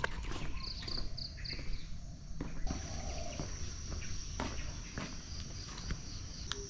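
Insects chirping: a few short high chirps in the first second or so, then a steady high-pitched buzz that sets in about a third of the way through, over a low rumble and scattered clicks.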